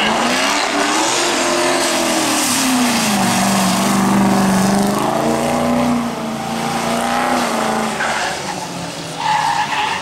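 Mercedes drift car's engine revving, its pitch rising and falling and then holding, while the tyres squeal through a long sideways slide.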